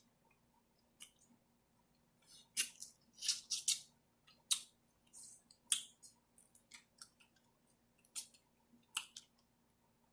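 Close-up eating sounds from a seafood boil: a series of sharp, irregular cracks and clicks, a few clustered together around two to four seconds in, with chewing between them.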